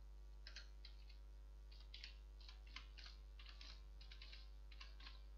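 Computer keyboard being typed on, a phone number keyed in as an uneven run of about fifteen faint, quick keystrokes.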